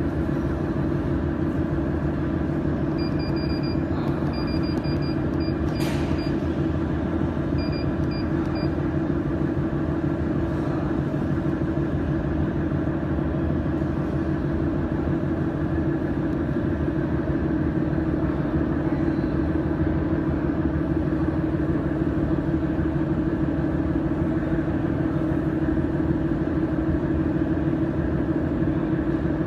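Laser welding machine running with a steady hum made of several tones. Short high beeps come in three clusters between about 3 and 9 seconds in, with a sharp click near 6 seconds.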